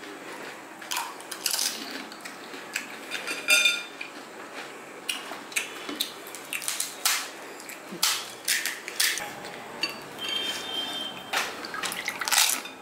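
Crisp fuchka (panipuri) shells cracking and crunching as they are broken open and bitten, mixed with steel spoons clinking against glass bowls as tamarind water is spooned in and drips. Sharp, irregular clicks throughout, with a couple of brief ringing clinks.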